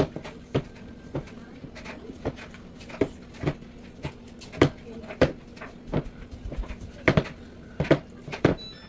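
Hands kneading flour-tortilla dough in a plastic mixing bowl: soft squishing thumps as the dough is pressed and squeezed, one every half second to a second.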